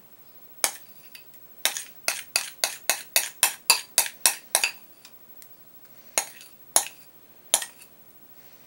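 A utensil knocking and clinking against a glass bowl as thick fudge is scraped out. There is one tap, then a quick run of about fourteen sharp clinks from about one and a half seconds in to nearly five seconds, then three more spaced taps near the end.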